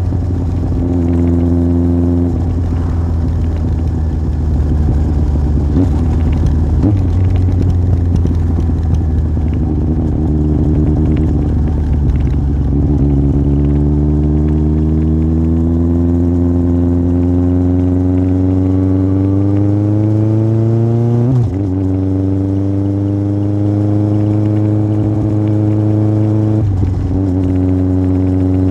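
Yamaha Fazer 1000's inline-four engine through a MIVV aftermarket exhaust while riding. It holds steady revs at first, then pulls with a steadily rising pitch for about nine seconds. A gear change drops the revs about 21 seconds in, and there is another brief change near the end.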